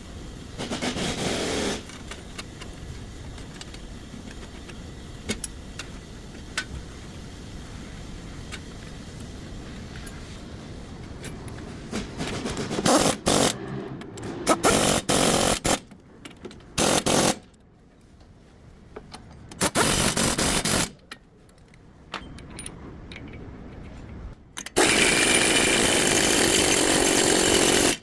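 Power tool run in six short bursts of even, hissing noise during a front wheel bearing job on a truck, the last and longest lasting about three seconds, with small tool clicks between them.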